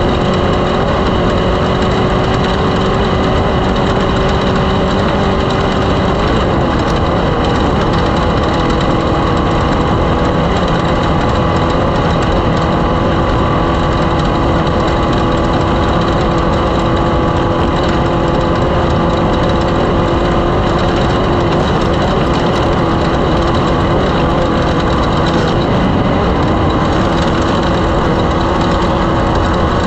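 An engine running steadily at an almost constant speed, its pitch easing slightly about six seconds in and shifting again near the end.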